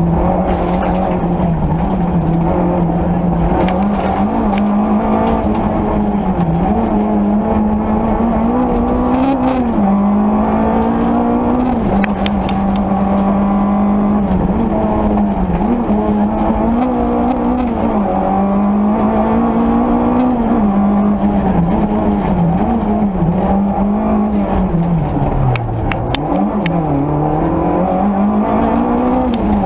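Peugeot 205 Rallye's four-cylinder engine driven hard on a rally stage, heard from inside the cabin: it runs at high revs, rising and falling as the car accelerates and slows. Near the end the revs drop sharply to low and climb back up.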